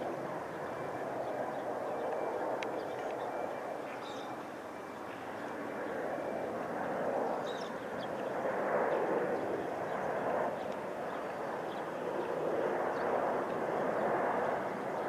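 Airbus A350 airliner on final approach with its landing gear down: the distant jet noise of its Rolls-Royce Trent XWB engines, a steady rushing sound that swells and eases slightly, with a few faint ticks above it.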